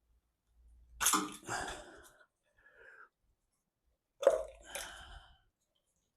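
Two sharp clatters about three seconds apart, each trailing off over about a second, from tools and parts being handled while the fuel-injection side of a Mercedes M110 engine is stripped down.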